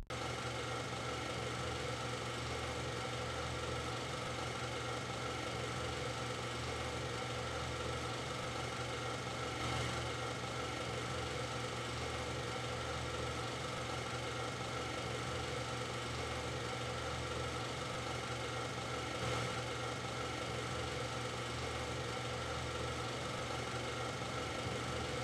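A steady, unchanging hum made of several held tones, with no rhythm and no change in level.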